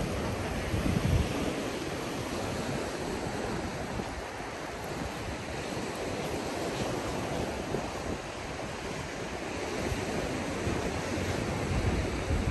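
Steady rushing outdoor noise of wind, with low gusts buffeting the microphone about a second in and again near the end.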